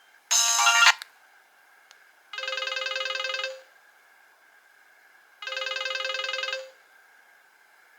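Nokia 1800 mobile phone playing its built-in ringtones through its small speaker. A short bright burst of notes comes just after the start. Then two identical trilling rings, each lasting about a second and a quarter, come about three seconds apart, like an old telephone bell ringing.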